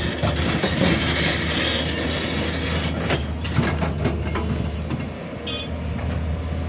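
JCB NXT 215LC tracked excavator working: its diesel engine runs steadily under load while the bucket scrapes through soil and rock, with rocks knocking and clattering, most sharply around three to four seconds in.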